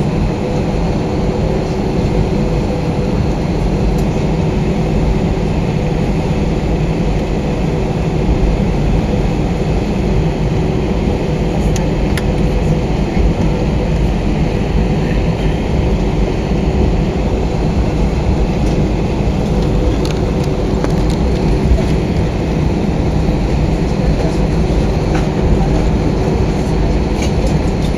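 Airbus A320 cabin noise: a steady low rumble with an even engine hum, level throughout and with no spool-up.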